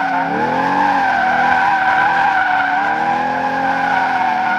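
2020 C8 Corvette's mid-mounted V8 revving up and down as the throttle is tapped to hold a drift, its pitch rising and falling several times. Over it the rear tires squeal in a steady high tone.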